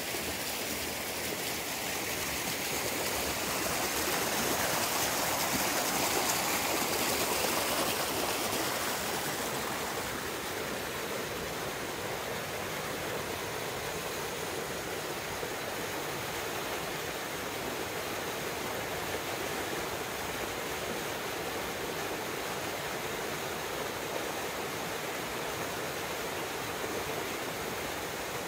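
Steady rush of flowing water, swelling slightly for a few seconds early in the stretch and otherwise even.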